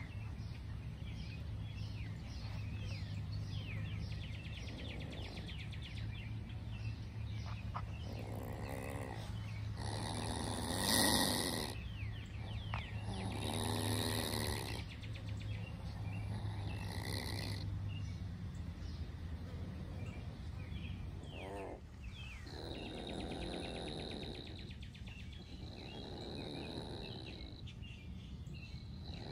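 Young Virginia opossum hissing and growling open-mouthed, a defensive threat, in breathy bursts about a second long, repeated nine or ten times with the loudest about eleven seconds in.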